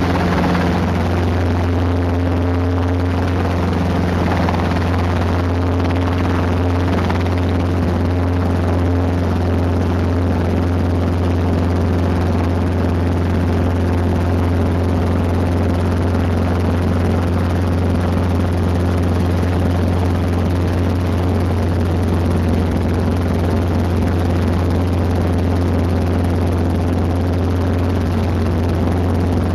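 Robinson R22 Beta II helicopter, its four-cylinder Lycoming piston engine and two-blade main rotor running steadily at takeoff power as it lifts off and climbs, heard from inside the cabin as a loud, steady low drone.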